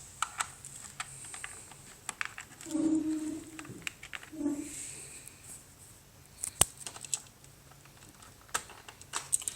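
Small plastic clicks and rattles of an IBM ThinkPad R31's hard drive and its bay cover being worked gently out of the laptop's side, with one sharper click about two-thirds of the way through.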